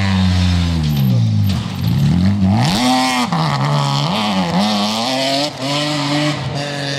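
Rally car engine: the revs fall away as it slows for a bend, then it accelerates hard, the engine note rising and dropping several times through the gear changes.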